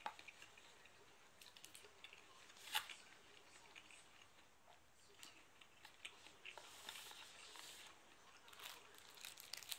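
Faint handling of a foam instant-noodle tray and chopsticks on a table: scattered light clicks and rustles, with one sharper knock about three seconds in.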